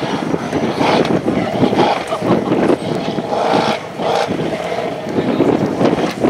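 Off-road buggy's engine revving up and down under load as it drives through loose dirt, with wind buffeting the microphone.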